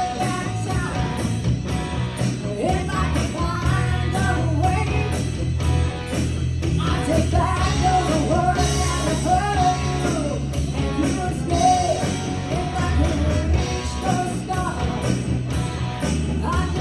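Live rock band playing a song, with a steady drum beat, bass and electric guitar under a bending lead melody.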